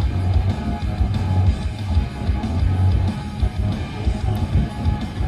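Music with guitar and a heavy, pulsing bass line.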